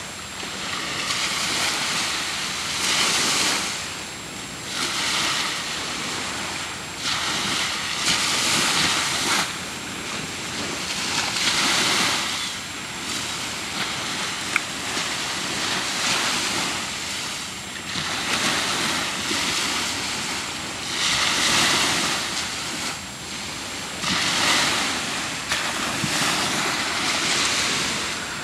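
Choppy sea water washing and wind buffeting the microphone, with the noise surging and easing irregularly every few seconds.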